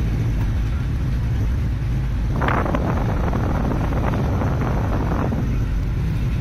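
Steady low rumble of a car's engine and tyres heard from inside the moving car's cabin. From about two and a half seconds in, a rougher, rasping noise joins it for about three seconds.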